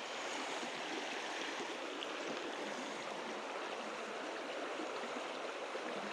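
Small creek running steadily, an even rush of flowing water over rocks.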